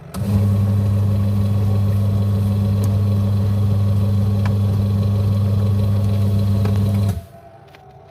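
A two-tub washing machine's electric motor switched on, running with a loud, steady electrical hum for about seven seconds, then cut off abruptly.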